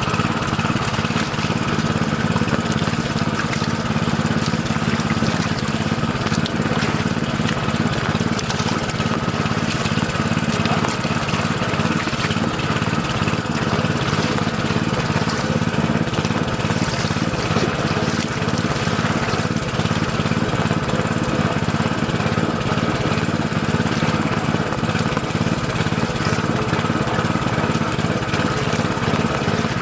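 Small engine driving a water pump, running steadily at constant speed.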